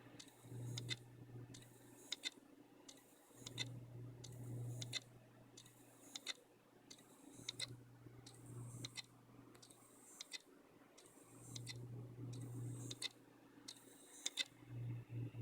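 3 TB Seagate ST33000651AS hard drive clicking over and over, more than once a second, with a low motor hum that swells and drops away every few seconds as it tries to start up after a power failure. The owner cannot tell whether the fault is mechanical or in the drive's circuit board.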